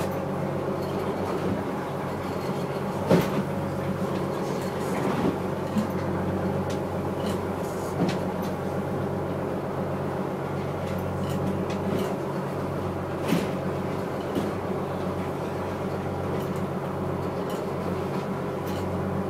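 A fishing boat's engine running steadily under way, a constant low drone heard from inside the wheelhouse. A few sharp knocks and rattles sound over it, the loudest about three seconds in and another around thirteen seconds.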